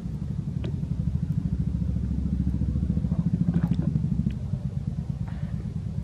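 Low, pulsing engine rumble of a motor vehicle, swelling around the middle and easing off toward the end, with a few faint ticks over it.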